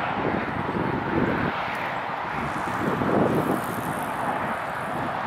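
Jet engine noise of a large airliner: a steady rushing rumble that swells slightly about three seconds in.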